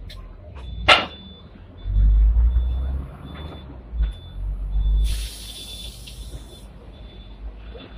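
Hong Kong tram's compressed-air system releasing a burst of hiss for about a second and a half, midway through. Around it come a sharp metallic knock about a second in, heavy low rumbling from the tram, and short repeated high beeps.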